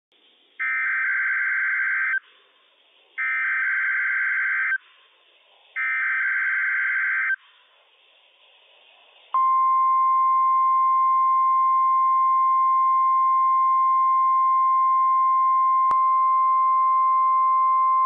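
NOAA Weather Radio test signal: three bursts of SAME digital header data, each about a second and a half long with short gaps between them. About nine seconds in, the steady 1050-hertz warning alarm tone comes on and holds.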